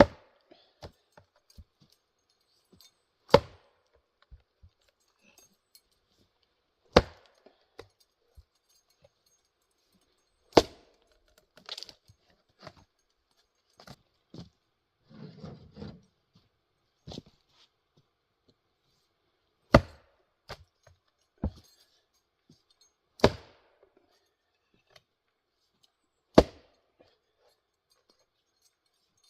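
A 3.5-pound Velvicut Jersey axe striking firewood rounds to split them, seven sharp strikes about three to four seconds apart with a longer pause in the middle. Lighter knocks and clatters come between the strikes.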